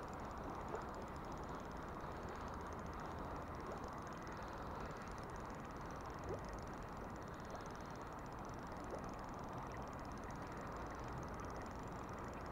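River water flowing: a steady, even rush with no breaks.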